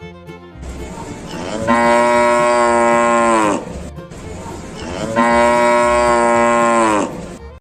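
Cow mooing twice: two long, steady moos a second or so apart, each dropping in pitch as it ends.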